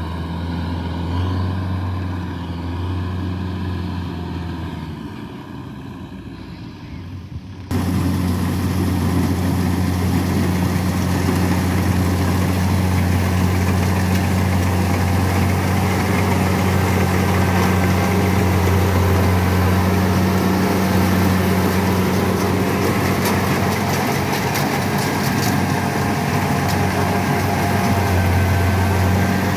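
Kubota DC-70 combine harvester running steadily while cutting and threshing rice: a loud, even diesel engine hum with machinery clatter over it. The first several seconds hold a quieter, thinner engine hum from farther off, which cuts suddenly to the close, louder combine about eight seconds in.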